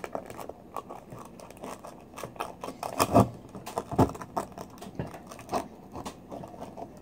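Knife blade scraping and clicking against the hard edge of a large pearl oyster shell as it is pried at to open it, in irregular small clicks with two louder knocks about three and four seconds in.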